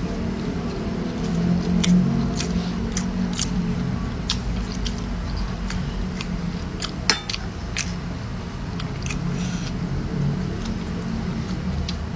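A person chewing and biting food close to the microphone, with scattered wet mouth clicks and smacks, one sharper click about seven seconds in, over a steady low hum.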